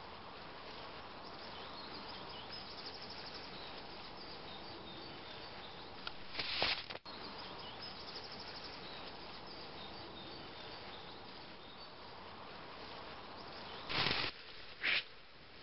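Steady outdoor ambience of insects trilling with a few faint bird chirps. A short rush of noise cuts in about six seconds in, followed by a sharp click, and two more short rushes come near the end.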